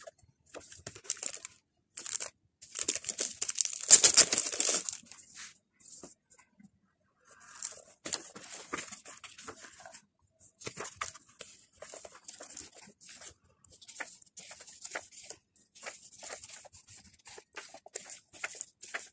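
Paper and card being handled and pages of a printed planner turned: a string of rustles and crinkles, loudest in a longer burst about four seconds in.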